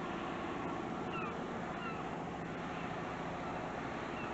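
Steady outdoor background noise, wind on the microphone with a faint low steady hum under it, and a few short falling chirps scattered through.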